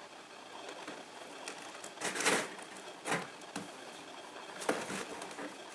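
Two cats scuffling: three short noisy bursts, the loudest about two seconds in, over a steady low background hum.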